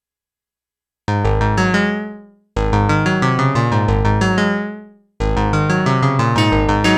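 Sequential Prophet-6 analog synthesizer playing its 'Digital Piano' FM patch, with oscillator 2 frequency-modulating through the Poly Mod section. It plays a sequenced electric-piano-like pattern of bass notes and chords, completely dry. It is silent for about the first second, then three phrases start with sharp attacks; the first two die away before the next.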